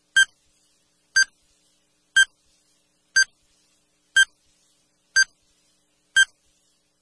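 Countdown timer sound effect: a short electronic beep once a second, seven beeps in all.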